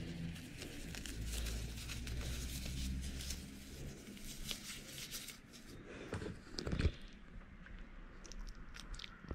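Crinkling and rustling of a foam mesh fruit sleeve being stretched and worked around a small dog's head by hand. There is a low rumble in the first few seconds and a louder dull bump about seven seconds in.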